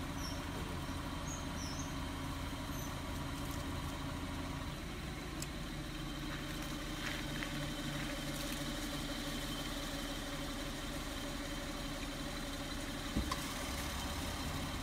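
A motor vehicle engine idling with a steady low hum. A few faint high chirps come in the first few seconds, and a brief knock comes near the end.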